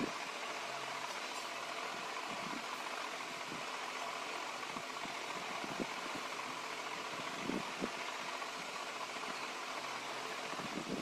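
Steady fan-like background hiss, with a few faint soft knocks scattered through it.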